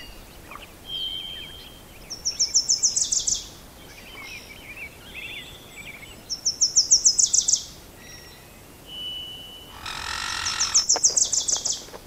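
A songbird singing the same high, fast trill of about ten notes roughly every four seconds, with shorter chirps in between. About ten seconds in there is a brief rushing, scraping noise.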